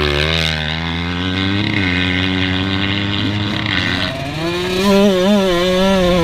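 A motocross bike engine running, heard on board, its pitch rising and falling with the throttle. It revs higher and louder about five seconds in as the bike accelerates.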